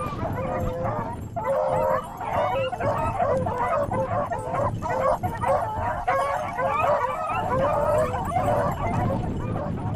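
A pack of beagles baying in chorus, several voices overlapping without a break, as the hounds run a rabbit's scent trail.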